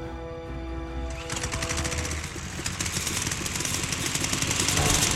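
Held notes of film-score music fade out. About a second in, a petrol lawn mower engine cuts in and runs with a fast, even rattle, growing louder.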